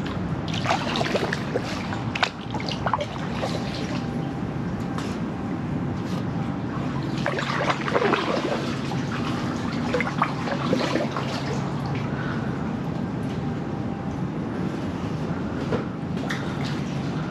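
Kayak paddle strokes in calm water: splashes of the blades and water trickling and dripping off the paddle, with a few sharp clicks.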